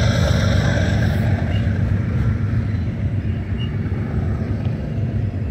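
Double-stack container well cars of a freight train rolling past on the rails with a steady low rumble. The diesel engine sound of the lead GE locomotives fades over the first second or two as they pull away.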